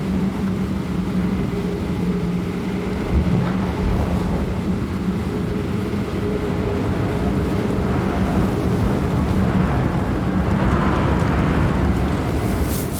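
Strong wind buffeting the microphone, a loud steady rumble with a constant low hum beneath it that fades out after about ten seconds.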